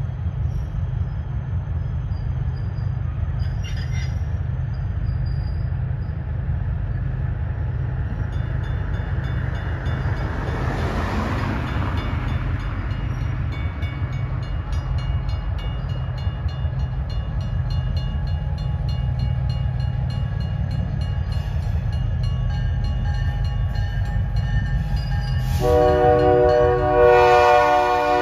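Steady low diesel engine rumble. About 25 seconds in, a locomotive's multi-chime air horn (a Nathan K3LA) sounds a chord and holds it loudly to the end.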